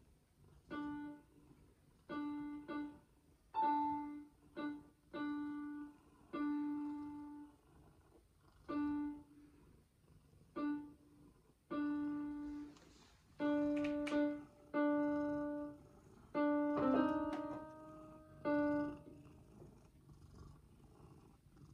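An electronic keyboard sounded by a cat lying on its keys: about fifteen separate held notes at irregular gaps, mostly the same low note, with a jumbled cluster of several keys together near the end. A faint low purr runs between the notes.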